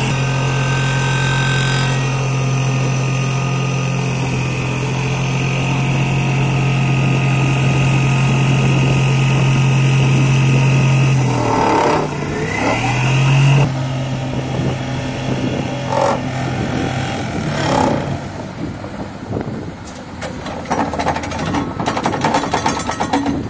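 Excavator-mounted vibratory hammer driving steel sheet piles: a loud steady droning hum that sags in pitch and picks back up about halfway through, then dies away in the last few seconds, leaving engine noise and a run of sharp metallic knocks near the end.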